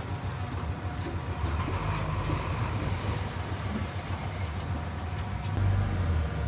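Diesel engine of heavy earthmoving machinery running under load, a steady low rumble with faint clanking, which gets louder about five and a half seconds in.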